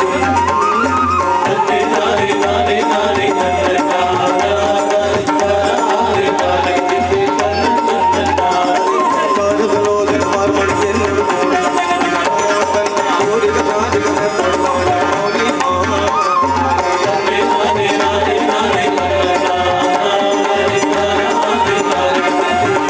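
Kerala Kuthiyottam folk music: a melody over a steady, repeating drum beat, at an even loudness throughout.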